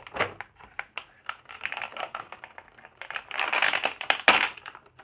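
Clear plastic bag crinkling and rustling as an action figure is worked out of it by hand, in irregular crackles that are loudest for about a second and a half from three seconds in.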